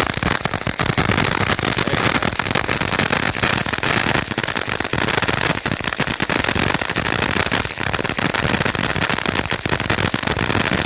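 Ground fountain firework crackling: a dense, loud, continuous rattle of tiny pops, the crackling stage of the fountain's effects, dying away just after the end.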